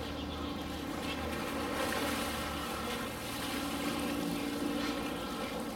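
Pool water sloshing and splashing as a polar bear hauls itself out of the water onto the rocks, over a low hum that fades about halfway through.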